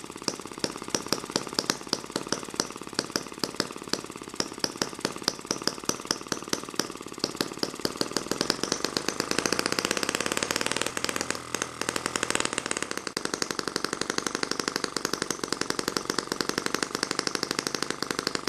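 Eachine ET5 miniature four-stroke gasoline model engine running, firing rapidly with sharper pops every half second or so. About nine seconds in it picks up and runs louder and more evenly.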